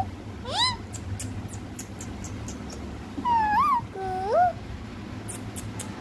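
Pet parakeet calling: one short rising call about half a second in, then a few squeaky rising-and-falling calls around three to four seconds in, with faint clicks in between.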